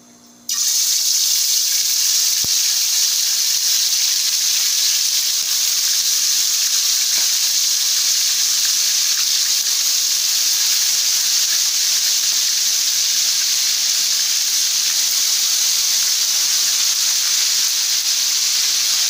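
Marinated chicken pieces frying in hot cooking oil in a wok: a loud, steady sizzle that starts suddenly about half a second in as the chicken goes into the oil.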